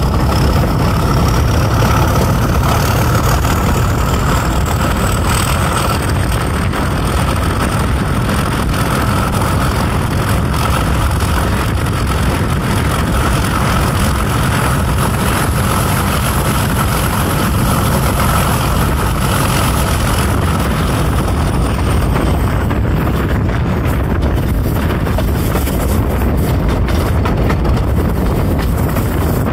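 English Electric 12SVT diesel engine of a Class 31 locomotive working steadily as the train runs along, heard from the cab side window. A high whine climbs slowly for about twenty seconds and then drops away. Wind buffets the microphone near the end.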